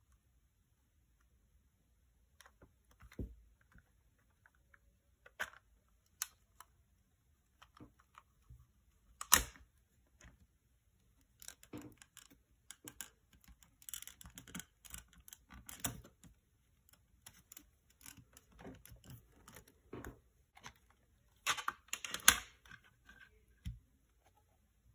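Plastic CD jewel case being handled: scattered clicks and rattles as the case is opened and the disc is pressed off its centre hub and lifted out. The sharpest click comes about nine seconds in, and a cluster of louder clicks comes a few seconds before the end.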